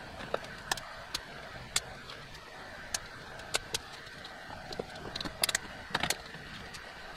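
Sharp clicks and taps from a flexible plastic curtain track with a metal core as it is uncoiled and pressed up against the ceiling, with a quick run of louder clicks near the end, over a steady low hum.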